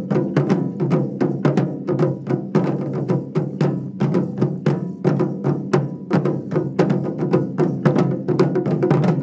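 Japanese taiko ensemble playing: barrel-bodied nagadō-daiko struck with wooden bachi in a fast, steady, driving rhythm of several strikes a second.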